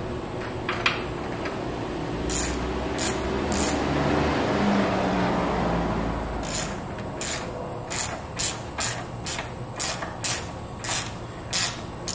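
Ratchet wrench clicking in short bursts on its back-swings while tightening the nut on a battery tie-down hold-down rod. There are a few strokes early on, then a regular run of about two a second through the second half, over a steady hiss.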